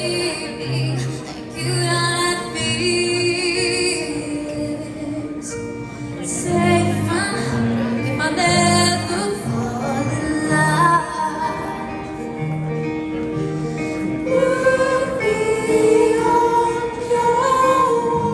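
Live rock band playing, with a female lead singer over acoustic and electric guitars, drums and keyboard.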